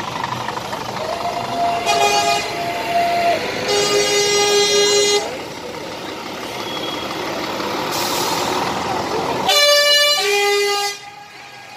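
Truck air horns sounding in three main blasts of different pitch, over the running diesel engines of passing trucks. The loudest blast comes near the end and cuts off sharply.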